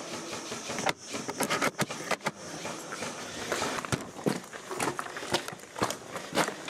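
Irregular clicks, knocks and rattling of a person moving about with gear.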